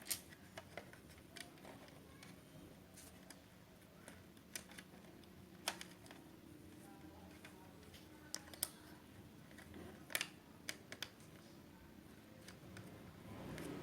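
Faint, scattered small clicks and taps from hands working a white cable back into its socket inside an open laptop, with a dozen or so sharp ticks at irregular intervals.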